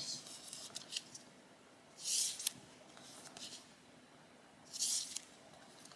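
Sticker sheets being handled and slid over paper: several short, soft paper rustles, the loudest about two seconds in and again near the end.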